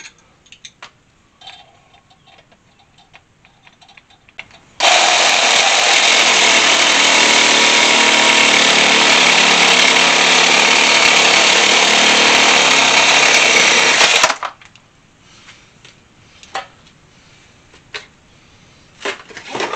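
Handheld cordless power tool cutting through a steel threaded rod clamped in a vise. It starts abruptly about five seconds in, runs at a steady high speed for about nine seconds, then cuts off. Light clicks and handling knocks come before and after.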